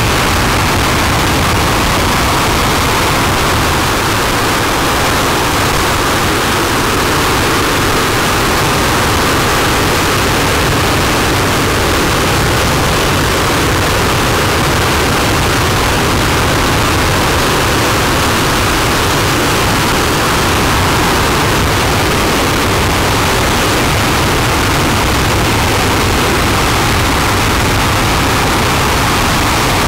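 RS-25 liquid-hydrogen/liquid-oxygen rocket engine firing in a static hot-fire test: a loud, steady, unbroken rushing roar that holds at one level throughout.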